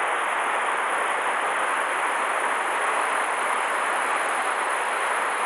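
Steady, even rush of a swollen river's current flowing hard, the water running high after a typhoon.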